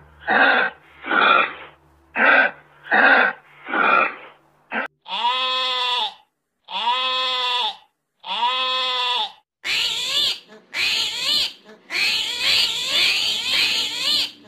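Six short breathy huffs, then a sheep bleating: three long, evenly spaced bleats of about a second each. From about two-thirds of the way in comes a quicker, wavering bleating cry with a harsh edge.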